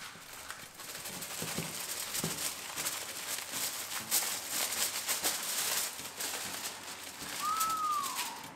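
Aluminium foil crinkling and crackling as gloved hands peel it off a roasting pan and lift it away. A single short falling whistle sounds near the end.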